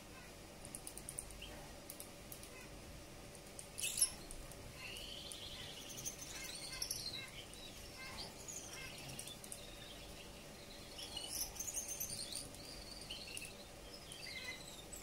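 Male Gouldian finch singing: a soft run of high chirps, short thin whistles and clicks, with one sharper click about four seconds in. A faint steady hum runs underneath.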